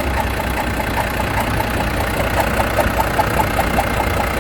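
Volvo FH13's 13-litre inline-six diesel idling with a regular, rapid knock and clatter from the valve-cover area, a sign of trouble in the valve gear.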